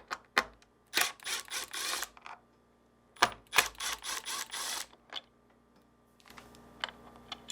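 Two runs of rapid clicking, each about one to one and a half seconds long, as a T15 Torx bit backs out the two screws holding a refrigerator's center mullion hinge. A few lighter clicks follow near the end.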